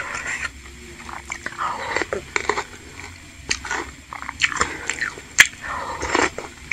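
Close-miked eating sounds: chewing and wet mouth noises as spicy bakso aci soup is eaten. Broth is slurped from a wooden spoon twice, about two seconds in and again near the end. There is a sharp click a little past five seconds.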